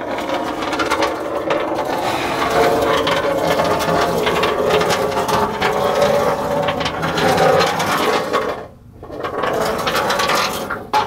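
Ratchet wrench clicking steadily as it backs out a long starter mounting bolt, stopping briefly about nine seconds in before a last short run.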